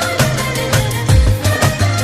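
Background music with a steady beat and heavy bass, in the style of an Indian film song.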